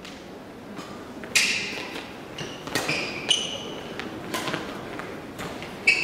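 Badminton rally: a run of sharp racket strikes on the shuttlecock, the first and loudest about a second and a half in, with sneakers squeaking on the hall floor between them.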